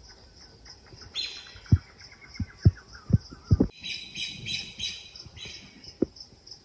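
Birds calling: a run of quick chirps falling in pitch, then a burst of repeated higher calls. A steady pulsing insect trill runs underneath. Dull thuds come at uneven intervals and are louder than the birdsong.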